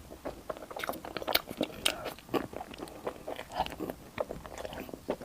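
Close-miked eating: a person chewing and biting food, with many short, irregular wet smacks and crunchy clicks.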